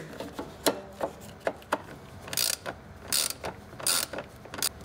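Ratchet wrench on a socket extension driving in the mounting screws of a new blower motor resistor. It makes a few sharp clicks, then four short ratcheting buzzes about three-quarters of a second apart.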